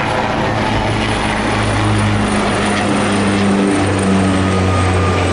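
A twin-turboprop plane and a helicopter flying together overhead: a loud, steady propeller and rotor drone with a low hum that shifts slightly in pitch about halfway through.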